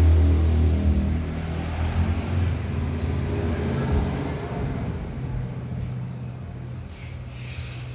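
Low engine rumble of a road vehicle, loudest at the start and fading steadily away, with a brief hiss near the end.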